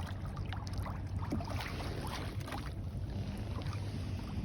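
Water splashing and lapping against a kayak's hull as it moves under an electric trolling motor, over a steady low hum.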